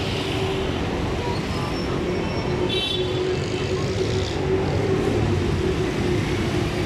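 Busy street traffic: a steady mix of engine and road noise from passing vehicles, with a brief high beep about three seconds in.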